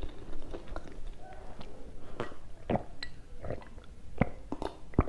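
A person drinking water from a glass in several swallows and gulps, heard as a string of short, irregular clicks and soft mouth knocks, closer together in the second half.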